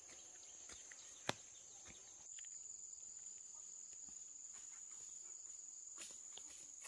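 Insects singing a steady high-pitched trill that grows louder a little over two seconds in, with one sharp click about a second in and a few faint ticks.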